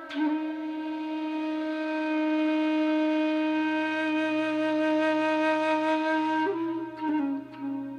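Slow meditative flute music: one long steady held note, with a brief move to other notes near the end.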